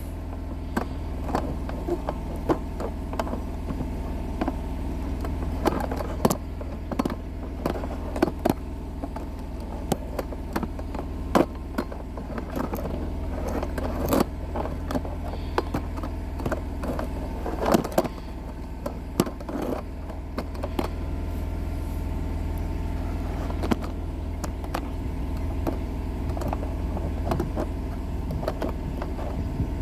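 An engine idling steadily, with scattered clicks and light knocks over it.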